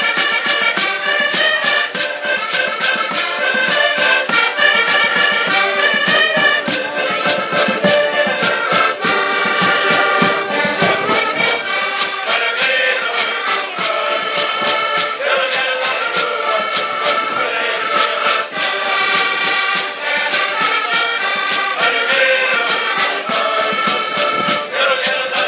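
Portuguese folk band playing live: several accordions carry the tune and chords over a cavaquinho, a bass drum and a steady ticking percussion beat, with men's voices singing along.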